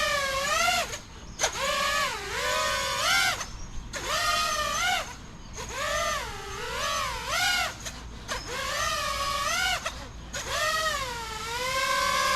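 Lumenier QAV-S 5-inch FPV quad's four brushless motors and propellers whining on a 6S battery in flight, the pitch swooping up and down with the throttle. The whine dips briefly several times where the throttle is chopped, and a long steady high-throttle stretch comes near the end.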